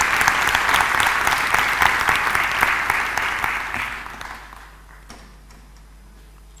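Audience applauding, a dense patter of many hands clapping that dies away over about a second from around three and a half seconds in.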